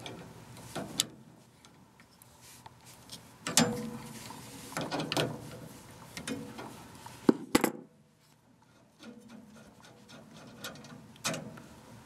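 Adjustable wrench working the thermocouple nut loose on a furnace gas valve: scattered metal clicks, knocks and scraping, the sharpest a pair of clicks about seven seconds in.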